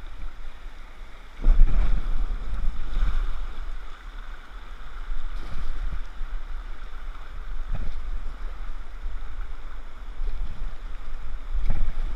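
Brown whitewater rapids rushing around a kayak, heard close up from a bow-mounted GoPro, with a gusty low rumble of wind and water buffeting the microphone. The rush gets louder about a second and a half in.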